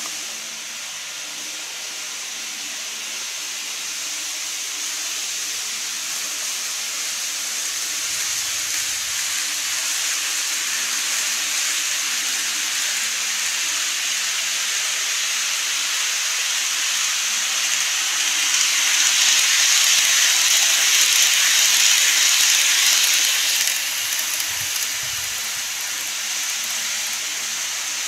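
TOMIX N-gauge model trains running on plastic track, a steady rolling hiss and whir. It grows louder for about five seconds in the latter half as a train passes close, then drops back suddenly.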